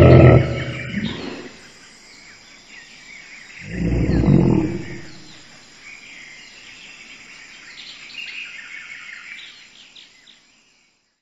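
Animated dinosaur sound effects: a loud deep roar dying away in the first second and a second, shorter roar about four seconds in, over a jungle backdrop of chirping birds and insects that fades out near the end.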